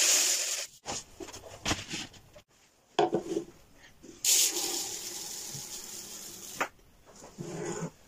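Dry rice grains pouring with a steady hiss: first a stream into a wooden grain-dispenser compartment, which stops within the first second. After some clicks and knocks from the dispenser's slide gate, rice runs out into a plastic jug for about two seconds, with a shorter trickle near the end.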